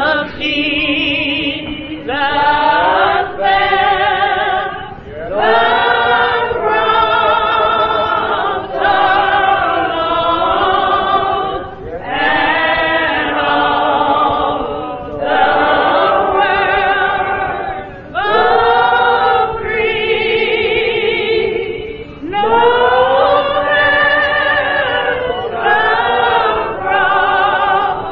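Church congregation singing a slow gospel hymn, apparently unaccompanied, in long drawn-out phrases with wavering pitch and a short break every two to three seconds.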